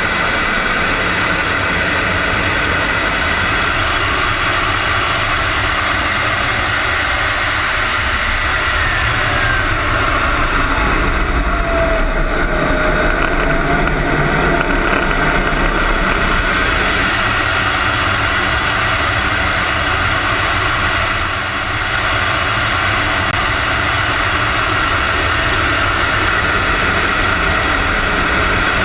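Radio-controlled model Aermacchi MB-339 jet in flight, heard from inside its cockpit: a steady high engine whine over rushing air. The whine dips in pitch about ten seconds in and climbs back a few seconds later.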